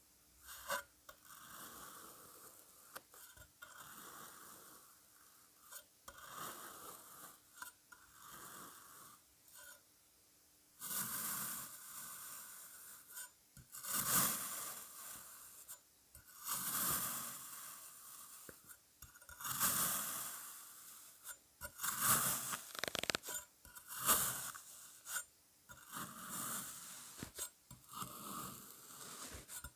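Kinetic sand being cut and squished: a run of irregular soft scraping and crunching strokes, quieter at first and louder and busier from about a third of the way in.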